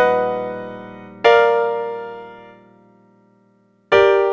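Piano chords (three-note triads) struck one at a time, each left to ring and fade. A chord rings out from the start, another is struck about a second in and dies away almost to silence, and an E-flat major triad comes in near the end.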